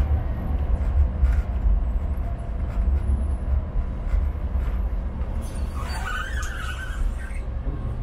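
Cabin sound of a Sheffield Supertram tram running along the line: a steady low rumble of wheels on rails. About two-thirds of the way through, a brief, uneven wheel squeal rises over the rumble for a second or so.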